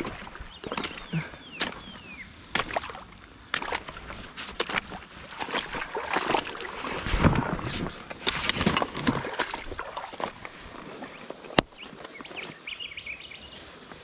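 Shallow river water splashing and sloshing while a hooked trout is fought close in on light line, with many short sharp clicks and knocks. The splashing is loudest about halfway through, and one sharp click stands out near the end.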